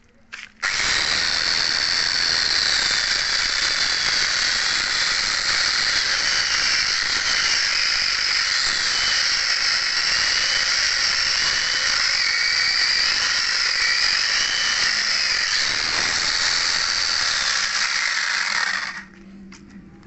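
Electric angle grinder fitted with a chainsaw bar and chain, cutting through a log. It starts about a second in and runs as a steady, high whine whose pitch wavers, then stops about a second before the end.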